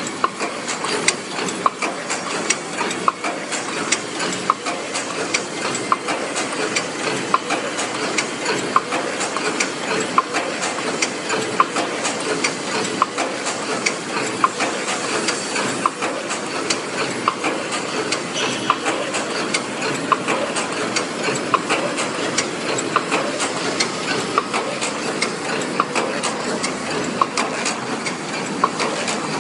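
Paper cup making machine running: a steady mechanical clatter and hiss, punctuated by sharp, regular clicks as its rotary turret indexes and presses form the cups.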